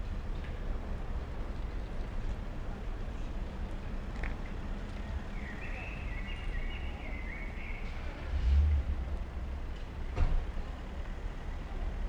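Outdoor street ambience: a steady low rumble of passing car traffic, with a bird chirping in a quick run of notes around the middle. A dull low thump comes about eight and a half seconds in, and a sharp click about ten seconds in.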